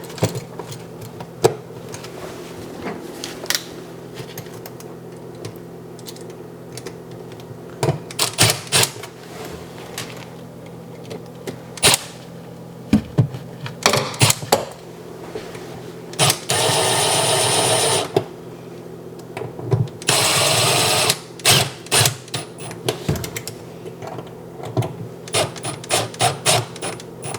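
A GFCI receptacle being fitted back into a metal electrical box: scattered clicks and knocks of handling and tools, then a cordless screwdriver runs twice, each time for about a second and a half, about two-thirds of the way through, driving the receptacle's mounting screws.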